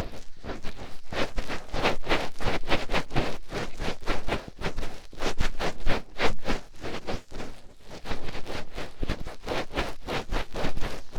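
Fingertips scratching and digging deep at an ear right against the microphone in quick, uneven strokes, several a second, with rustling and scraping.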